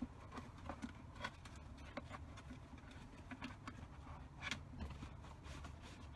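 Seat belt webbing being pulled through the belt path of a plastic infant car seat base: scattered rustles, scrapes and light knocks, over a low steady hum.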